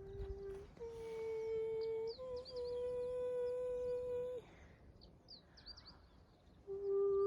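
An unidentified humming tone held in long steady notes. It steps slightly higher about two seconds in, breaks off after about four and a half seconds, and returns a little lower near the end, with short high chirps over it.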